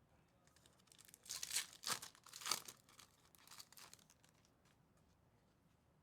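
A foil trading-card pack wrapper being torn open: a few quick rips and crinkles over about three seconds, the loudest in the middle.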